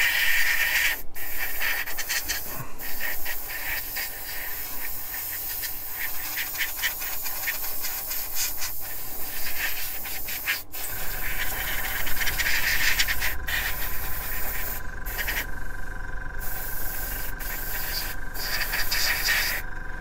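Gravity-feed airbrush spraying paint: a steady hiss of air broken by several short pauses as the trigger is let off. About halfway through, a low motor hum with a steady whine joins in under the hiss.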